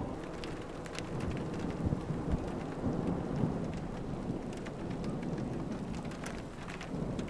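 Rain falling during a thunderstorm: a steady hiss with many scattered sharp drop hits, over a low rumble.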